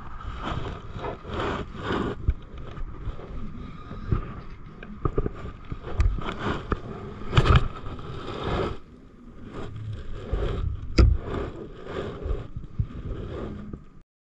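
Rustling and scraping handling noise from clothing and gloved hands close to the microphone, with some wind buffeting and a few sharp knocks about six, seven and a half and eleven seconds in. The sound cuts off abruptly just before the end.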